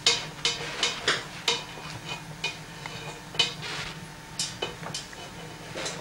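A cockatoo's beak clinking and scraping against a stainless steel pot as it picks spaghetti out of it: about a dozen sharp, irregular clinks, closer together in the first couple of seconds and sparser after.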